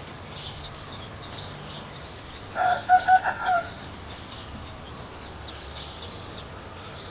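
Newly hatched chicks peeping in short, high calls throughout. About two and a half seconds in, a rooster crows once, for about a second, louder than the chicks.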